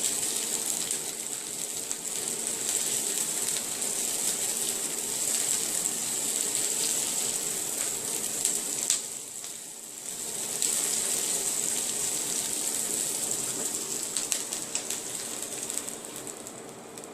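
Sliced bell peppers and onion sizzling in hot oil in a frying pan: a steady crackling hiss, dropping away briefly about nine seconds in before picking up again.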